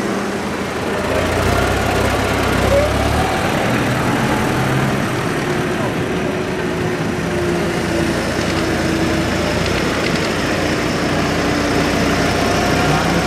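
Tractor engines idling and running, a steady low hum that shifts in pitch in the first few seconds, with crowd voices in the background.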